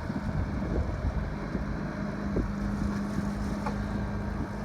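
Yamaha EF2000iS inverter generator running steadily with a constant hum, with wind buffeting the microphone.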